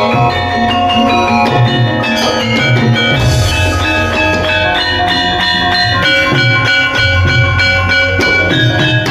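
Bronze Javanese gamelan playing a gending: struck metallophone keys ring in a steady, interlocking melody over deep, recurring gong tones.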